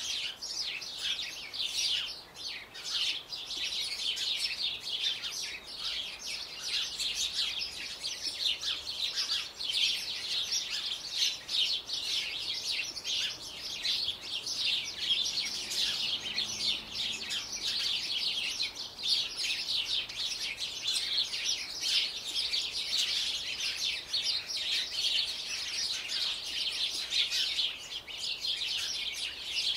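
Songbirds singing and chirping: a dense, continuous chatter of quick high notes with no pauses.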